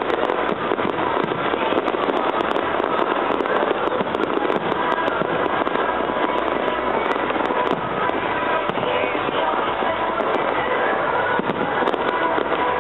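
Fireworks display going off continuously: a dense crackling with many sharp pops and bangs, over music playing throughout.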